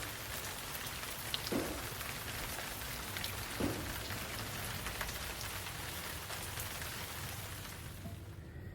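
Steady rain falling, with scattered drops tapping and a couple of brief soft thuds.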